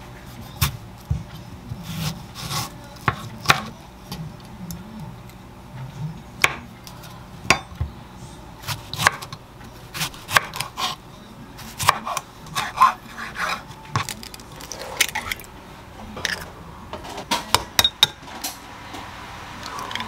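Kitchen knife slicing a tomato on a wooden cutting board, with irregular sharp knocks of the blade meeting the board. Near the end, an egg cracked open over a glass bowl.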